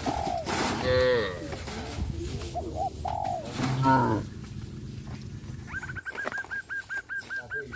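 Cattle lowing in the first half, followed by a bird calling a quick run of short, repeated high notes, about five a second, for the last two seconds.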